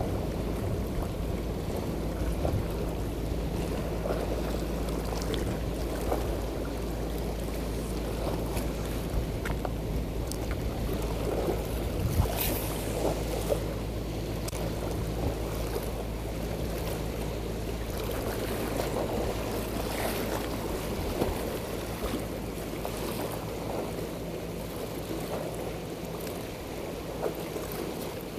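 Sea wind buffeting the microphone and waves washing against a breakwater, with a low steady hum underneath and a few faint clicks.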